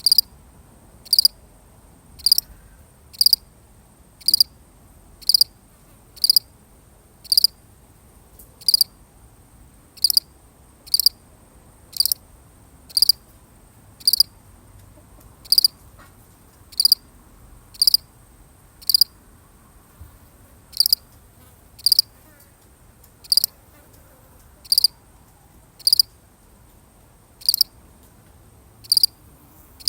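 A single cricket chirping, one short chirp about every second in a steady rhythm, over a faint steady high tone.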